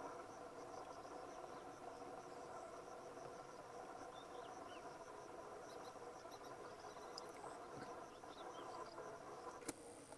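Faint, steady outdoor chorus of insects trilling, with a sharp single click near the end.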